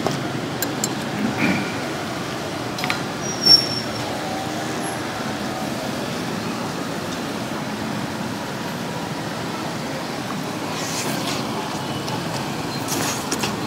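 Steady background street noise, like traffic, with a few light clicks and clinks of cutlery on a plate, the loudest about three and a half seconds in.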